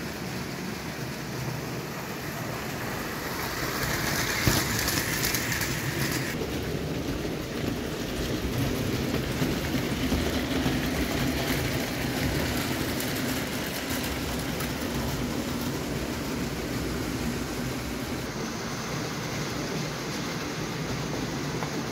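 0 gauge tinplate model train running over tinplate track: a steady rolling rattle and clatter of wheels and cars. About four seconds in, a hiss rises for a couple of seconds.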